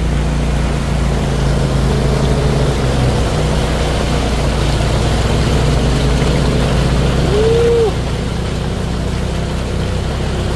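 Side-by-side UTV engine running steadily while driving a trail, with a short rising-and-falling tone about seven seconds in.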